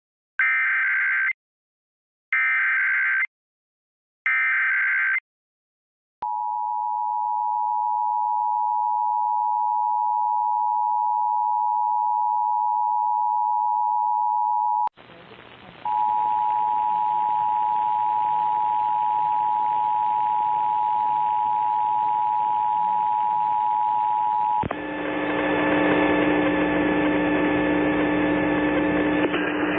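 Emergency Alert System test: three short bursts of header data, then the two-tone attention signal held for about nine seconds. A second two-tone attention signal follows over background hiss for about nine more seconds, then gives way near the end to a steady buzzing hum.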